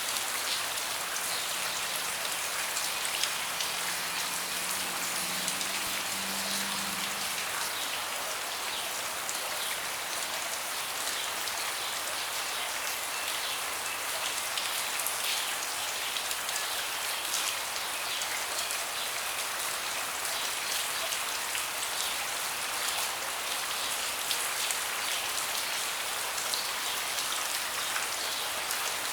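Steady rain falling on a deck, with many separate drop hits, and a faint low hum during the first seven seconds or so.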